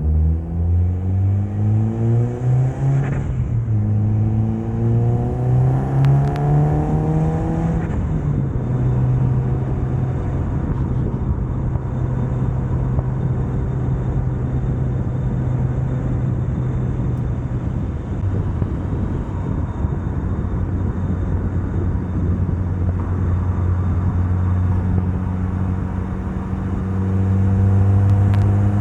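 Mitsubishi Lancer Evolution's turbocharged 4G63 inline-four accelerating hard. The pitch rises, drops at an upshift about three seconds in, and rises again. After about eight seconds it settles into a steady drone, eases lower partway through, and climbs slightly near the end.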